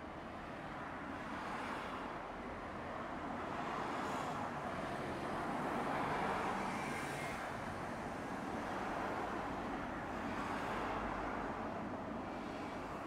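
Street traffic: road vehicles passing one after another, a steady road noise that swells and fades as each goes by.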